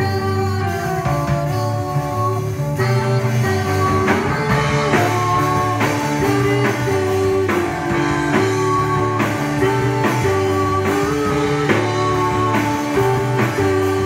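Live rock band playing: electric guitars, bass guitar and a drum kit, with a steady beat.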